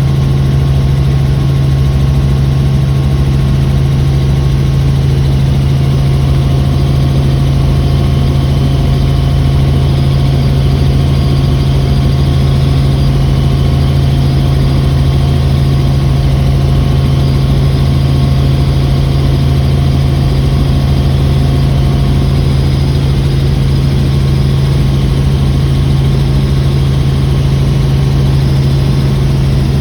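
Helicopter in flight: a loud, steady drone of rotor and engine with a constant low hum that does not change.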